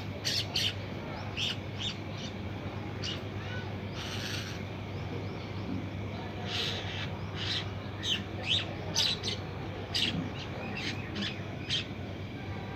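Birds calling with short, sharp chirps, scattered irregularly with a busier stretch in the second half, over a steady low hum.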